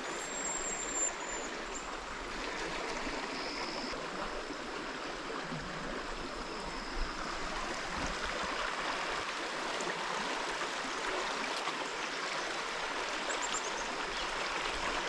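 Little Manistee River, a clear shallow stream, flowing with a steady babble. A few faint high chirps come and go over it.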